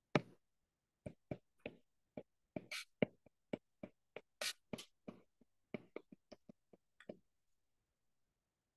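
Stylus tapping and scraping on a tablet's glass screen during handwriting: a string of irregular light taps and short scratchy strokes that stops about seven seconds in.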